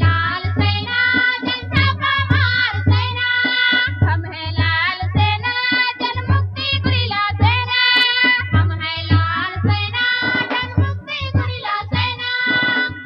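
A song: a high voice sings a melody over a steady low drum beat.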